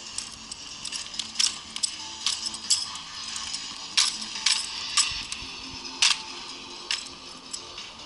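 Drill rifle being spun and caught, with sharp metallic clinks and slaps from its hardware and the hands, about a dozen at irregular intervals.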